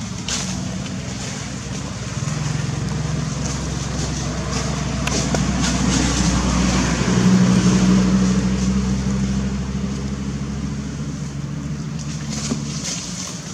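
A motor engine running steadily, growing louder towards the middle and then fading a little, like a vehicle passing by.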